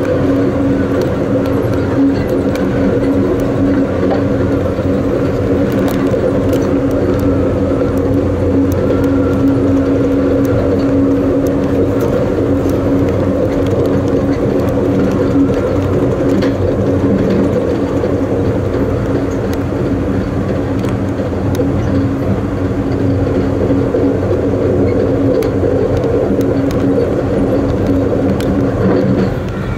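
Amtrak Coast Starlight passenger train running at speed, heard from the rear of the train: a steady rumble of wheels on the rails under a steady droning hum, with faint scattered clicks.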